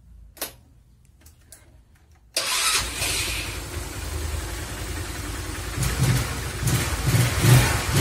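A 150 cc four-stroke scooter engine comes in abruptly about two and a half seconds in, after a few faint clicks, and runs on. Its speed rises and falls unevenly a few times near the end.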